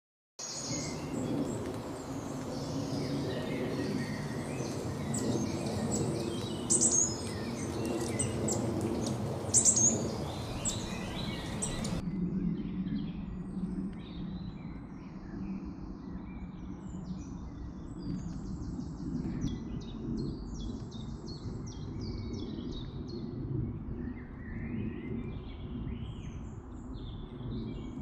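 Small woodland songbirds singing and calling, short chirps and quick trills, over a steady low rumble. A couple of sharp knocks stand out in the first half.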